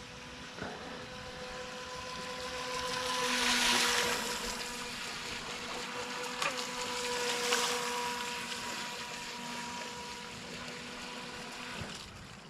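FTX Glader RC jet sprint boat's small brushed electric motor and jet drive running at speed on the water: a steady whine with a rush of water that swells loudest about four seconds in and again a few seconds later.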